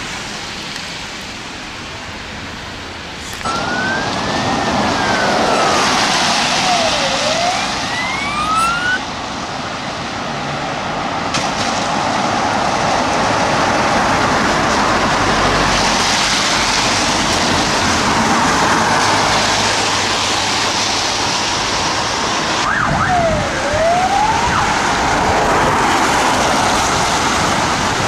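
Emergency vehicle siren, from the fire investigation officer's vehicle, giving a slow rising-and-falling wail about three seconds in and a quick down-and-up sweep later on. Both sound over a loud, steady rushing noise that starts with the first sweep.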